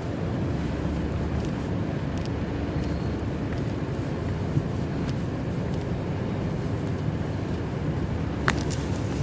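Steady low rumble of tyre, engine and wind noise inside a car's cabin while driving through a ground blizzard, with a few faint ticks and one sharper click near the end.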